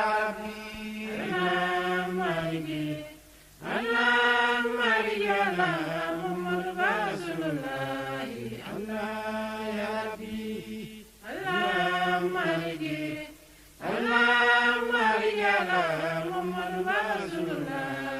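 Islamic devotional chanting of blessings on the Prophet Muhammad (salawat), sung in long melodic phrases with a few short breaks between them.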